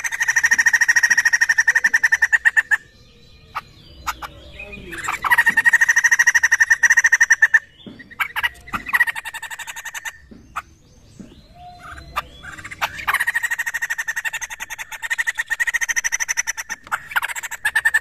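White-crested laughingthrush (poksay jambul) calling: three loud bursts of fast, buzzy rattling chatter, each a few seconds long, with softer scattered calls between them.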